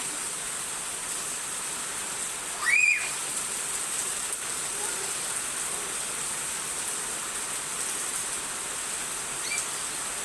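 Steady rain falling, an even hiss. About three seconds in there is one short high squeal, and near the end a faint chirp.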